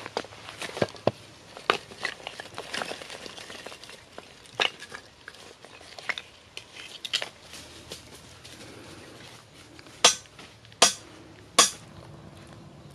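Pieces of charred wood clinking and knocking against each other as they are stacked by hand, with a light rustle of dry leaves. About ten seconds in come three louder sharp clicks in quick succession.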